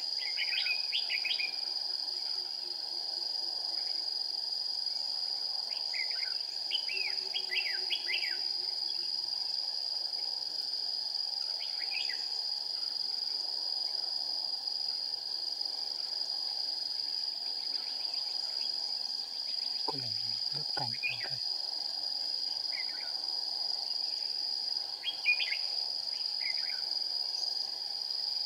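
Red-whiskered bulbuls singing in short warbled phrases, in several bursts, over the steady high trill of insects. Around two-thirds through there is a brief low falling sound.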